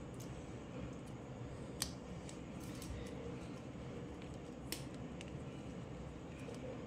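Small plastic toy parts clicking against each other as the wing piece of a pterodactyl figure is fitted on by hand. There are a few sharp clicks, the loudest about two seconds in and another near five seconds, over a low steady hum.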